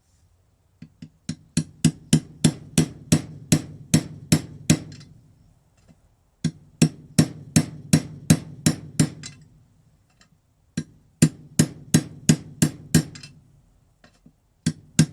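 Hammer tapping on a socket used as a seal driver, knocking a new water pump shaft seal into the engine case. It is three runs of steady, sharp blows, about three a second, with short pauses between runs and a single blow near the end.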